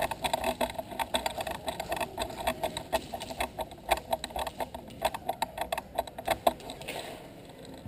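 Airsoft guns firing: a dense, irregular run of rapid clicking pops that stops about six and a half seconds in.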